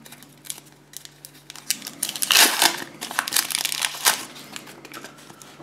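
A trading-card packet's wrapper being torn open and crumpled by hand: scattered crinkling that grows louder and denser about two seconds in, then eases off near the end.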